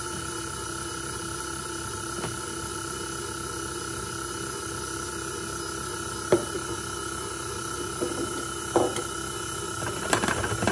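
KitchenAid stand mixer running at a steady speed, its wire whisk beating batter in the steel bowl: an even motor whine. A few short sharp clicks break in, more of them near the end.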